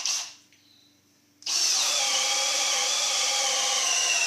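Milwaukee M18 Fuel brushless hammer drill on second speed, driving a 1-inch bit into a 4x6 timber. After a short burst right at the start, the drill starts about a second and a half in and runs steadily under load, its whine sagging slightly as the bit bores deeper.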